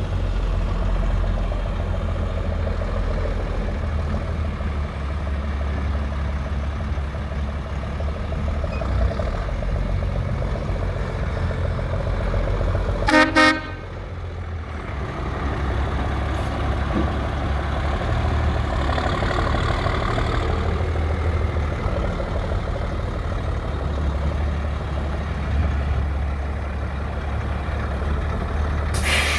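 International 4900 service truck's diesel engine idling steadily, with a vehicle horn honking twice briefly about halfway through and a short hiss near the end.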